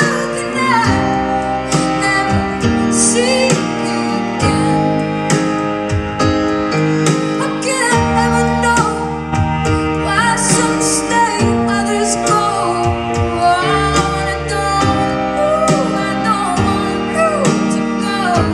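Live music: a woman singing while playing a grand piano.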